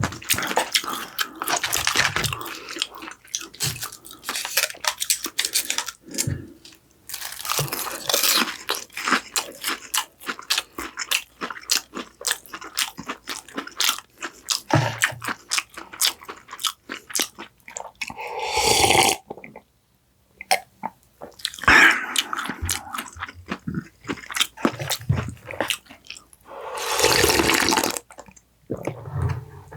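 Close-miked eating: a person biting and chewing with many irregular crunches, broken by a couple of longer, smoother noises about two-thirds of the way in and near the end.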